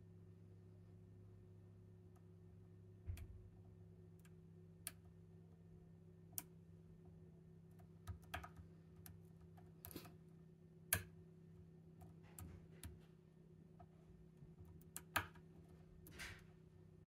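Lock pick working the pins of an ASSA Guideline cylinder lock under tension: quiet, irregular small metallic clicks and ticks, a dozen or so spread unevenly, with two sharper ones about eleven and fifteen seconds in.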